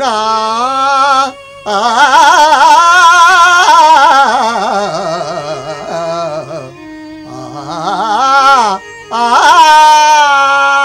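A male harikatha singer drawing out a long, ornamented Carnatic-style melisma on one syllable, his pitch wavering and sliding, over a steady held accompanying note. The voice breaks off briefly about a second and a half in, dips lower and quieter around seven seconds, and returns strongly for a final phrase near the end.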